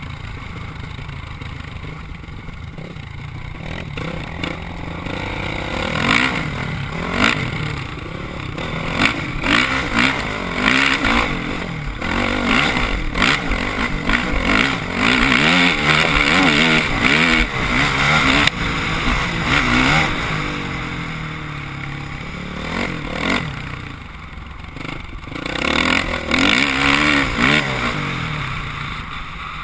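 Dirt bike engine revving up and down as it rides a rough dirt trail, heard from a helmet camera. It is lighter for the first few seconds, works hardest through the middle, eases off, then picks up again near the end. Rattles and knocks come from the bumpy track.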